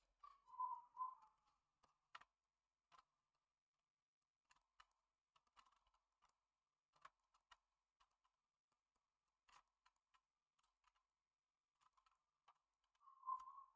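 Near silence broken by faint, scattered clicks and taps of a stylus on a graphics tablet and of keyboard keys while digital painting, with two brief louder scuffs, one about half a second in and one near the end.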